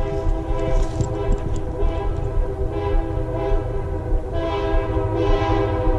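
A locomotive's air horn sounds a held, multi-note chord that dips briefly near the middle, over the low rumble of the approaching train.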